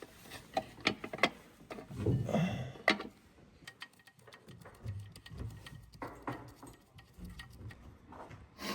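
Scattered light metallic clicks, taps and the odd low knock from hand tools and clutch parts as the clutch disc and pressure plate are lined up on the flywheel with a centering tool.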